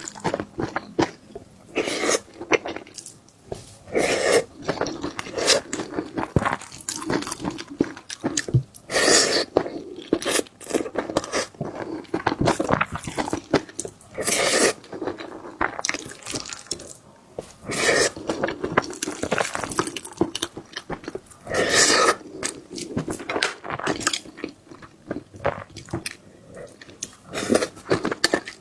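Close-miked eating sounds: irregular chewing and crunching with wet mouth sounds, through a meal of sticky rice with braised potato and pork belly, stir-fried egg and garlic scapes. A few louder bursts stand out among the chewing.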